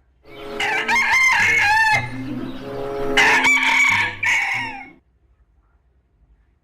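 A rooster crowing, a loud call of about four and a half seconds that cuts off suddenly.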